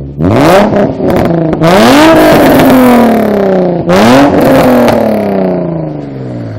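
Nissan 350Z's 3.5-litre V6 blipped three times through a free-flowing exhaust with test pipes in place of the catalytic converters, very loud. Each rev climbs and then falls back toward idle, with sharp crackles on the rises.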